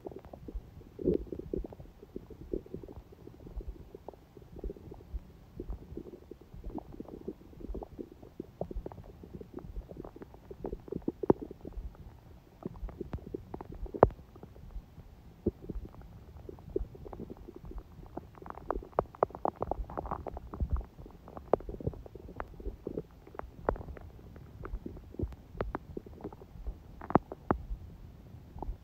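A person's stomach gurgling and rumbling in a steady run of short bubbling pops, with a busier stretch of higher gurgles about two-thirds of the way through.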